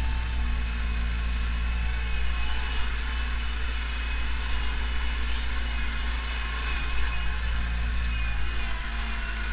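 Pronar 82SA tractor's diesel engine running steadily under load, heard from inside the cab, while it pulls a seedbed cultivator through the soil. The tractor is not labouring at this pace.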